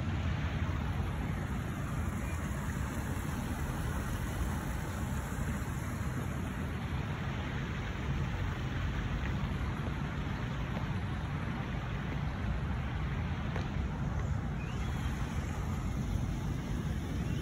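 Steady low rumble of city traffic, even throughout with no separate events standing out.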